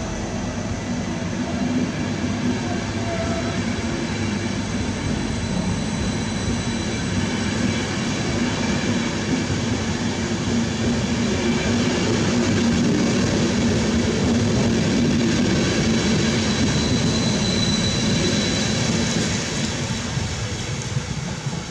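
ÖBB Nightjet passenger coaches rolling along the track, a steady rumble of wheels on rail that builds, is loudest around the middle and eases off near the end as the train draws away.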